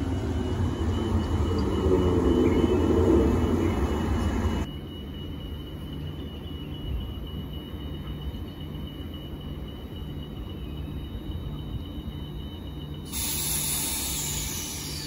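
Transperth A-series electric train braking into the platform, its wheels rumbling and squealing. About four and a half seconds in it comes to a stand and the sound drops suddenly to the train's steady hum with a faint high whine. Near the end a hiss starts suddenly.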